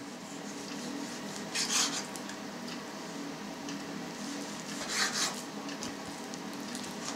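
Kitchen knife slicing raw meat on a cutting board: two short cutting strokes, about a second and a half and five seconds in, over a faint steady hum.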